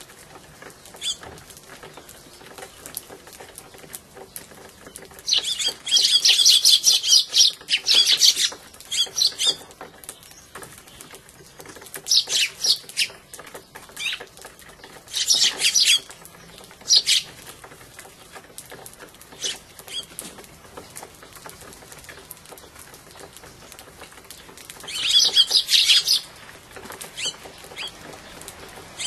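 Eurasian tree sparrows at a seed tray chattering in several loud bursts of rapid, high chirps, the squabbling calls of birds fighting over food, with faint ticks between the bursts.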